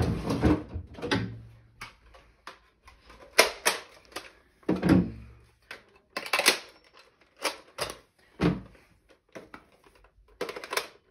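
A wooden drawer is slid open, then a series of separate plastic clacks and clicks as a Nerf Elite blaster is handled and loaded with a magazine.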